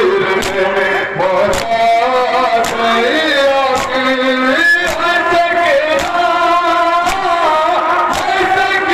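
Men's voices chanting a noha, a Shia lament sung in Urdu, into a microphone. It is accompanied by a steady rhythm of sharp slaps from mourners beating their chests (matam).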